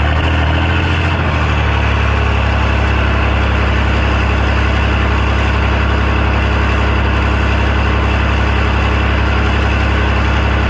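5.9-litre 12-valve Cummins turbo diesel just after starting, settling from its start-up surge into a steady idle about a second and a half in.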